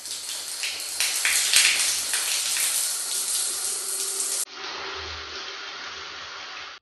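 Shower head spraying water onto a tiled floor, a loud splashing hiss. About four and a half seconds in it cuts suddenly to a quieter, duller stretch of running shower water.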